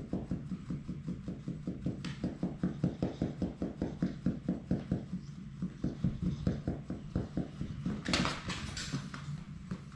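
Labrador retriever puppy making an even rhythmic sound of about four to five pulses a second, then a brief louder scuffling noise near the end.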